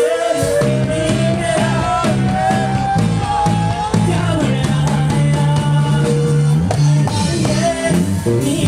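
Rock band playing, with electric guitars, bass and a drum kit under a singer's voice; a long held note slowly rises over the first four seconds.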